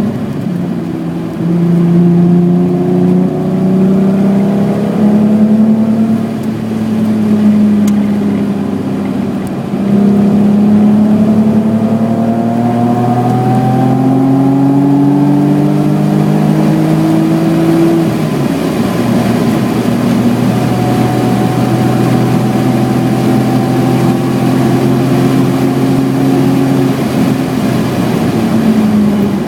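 1986 BMW E28's 3.6-litre straight-six engine under hard acceleration on track. The revs climb in long pulls and fall back at gear changes about 1.5 s, 3 s, 10 s, 18 s and 27 s in. It eases off and runs quieter between about 6 and 10 s.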